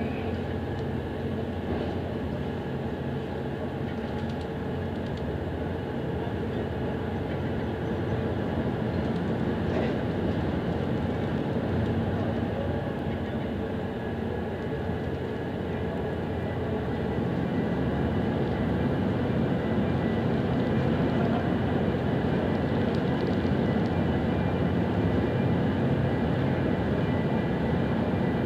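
Steady mechanical drone of a large engine or machinery, a hum of several held tones over a rumble, growing slightly louder about two-thirds of the way through.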